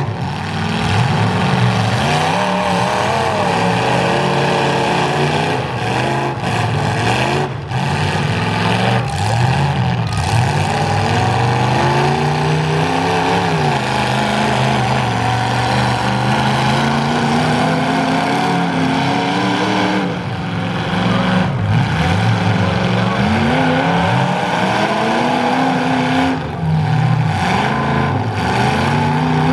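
Engines of two full-size demolition derby cars revving hard as they shove against each other while locked together. The pitch rises and falls again and again as the drivers get on and off the throttle.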